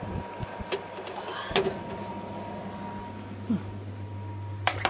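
A metal baking tray drawn out along a wire oven rack, clinking and knocking on the rack with a rustle of aluminium foil; a loud knock comes about a second and a half in. From then on a low steady hum runs underneath.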